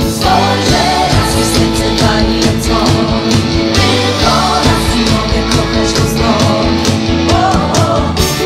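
Loud upbeat pop-rock music with a steady drum beat and singing.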